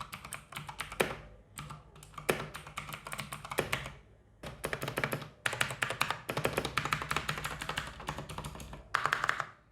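Typing on a GAMDIAS HERMES P1B mechanical gaming keyboard: fast runs of key clicks with short pauses about a second and a half and four seconds in. It is the ordinary sound of a mechanical keyboard, not annoying at all.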